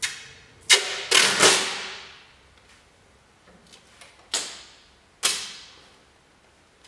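Green painter's masking tape being pulled off the roll in five quick rips: three in the first second and a half, then two more about four and five seconds in.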